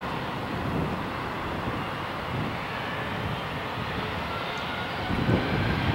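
Airbus A320's IAE V2500 turbofan engines running steadily at low power before the takeoff roll: a steady rushing hum with a faint high whine. Uneven low rumbles come and go, strongest about five seconds in.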